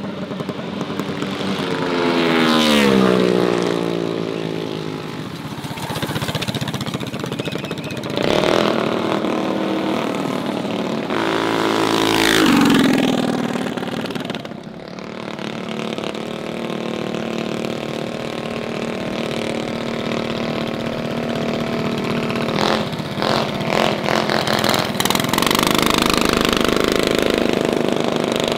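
Mini bike engines running hard. Two go past close by, about three and about twelve seconds in, each dropping in pitch as it passes, and a steady engine drone carries on through the rest.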